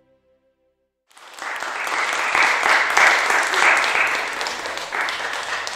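Audience applauding: the clapping starts about a second in after a short silence, swells quickly, then gradually dies away near the end.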